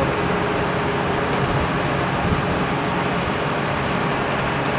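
A large mobile crane's diesel engine runs steadily as it hoists a modular home section.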